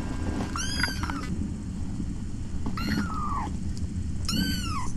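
Kitten mewing three times, short high-pitched mews that rise and then fall in pitch.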